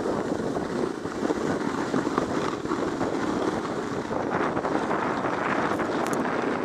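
Zipfy plastic mini-luge sled sliding fast over packed snow: a steady scraping hiss, mixed with wind buffeting the microphone.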